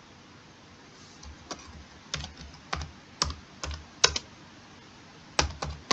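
Computer keyboard being typed on: irregular sharp key clicks that start about a second in, stop briefly after about four seconds, then resume near the end.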